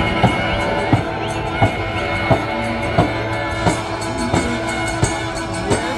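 Music with a steady beat, about three strikes every two seconds, over held tones.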